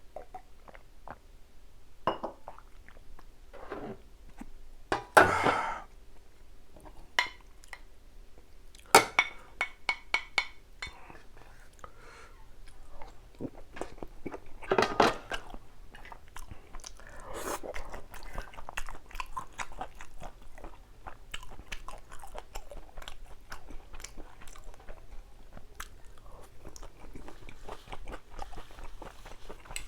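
A person chewing and biting food close to the microphone, with crunchy bites. Louder moments come about 5, 9, 15 and 17 seconds in.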